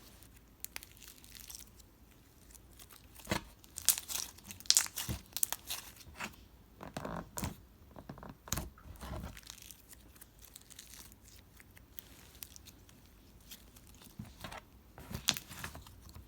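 Iceberg slime being pressed and pulled, its hardened top crust crackling and crunching in irregular bursts of sharp crinkly snaps, busiest a few seconds in and again near the end.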